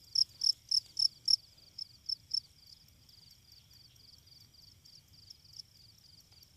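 Field cricket chirping close by, about four sharp high chirps a second, falling silent about two and a half seconds in while fainter crickets keep chirping steadily.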